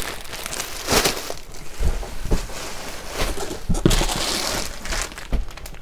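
Plastic packaging rustling and crinkling in irregular bursts as wrapped items are handled, with a few light knocks.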